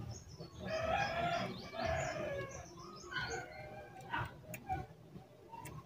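A rooster crowing in the background, one long call in several parts. A few sharp clicks follow near the end.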